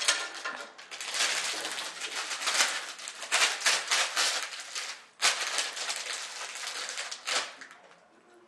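A small bag of loose hard pieces shaken vigorously, rattling and rustling in fast runs of strokes. There is a brief break about five seconds in, and the shaking stops shortly before the end.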